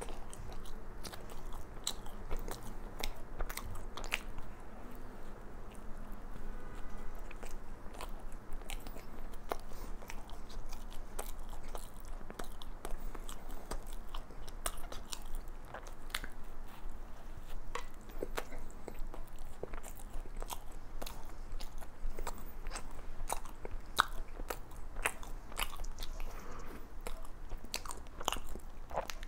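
Close-up chewing of a Krispy Kreme doughnut with a crunchy chocolate crumb topping: soft, moist chewing broken by many sharp, irregular crunches.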